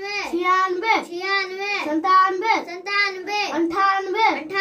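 A boy's voice counting aloud in Hindi in a sing-song chant, each number said twice in an even rhythm.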